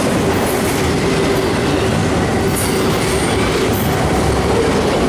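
Freight train autorack cars rolling past close by: a steady rumble and clatter of steel wheels on the rails, with a faint steady whine under it.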